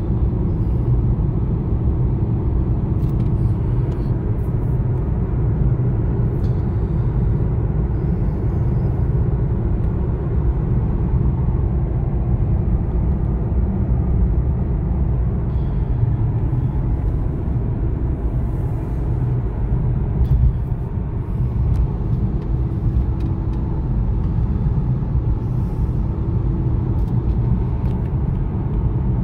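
Steady low rumble inside the cabin of a 2012 Aston Martin Rapide driving at road speed: tyre and road noise under the drone of its V12 engine, with a faint steady hum that grows a little stronger near the end.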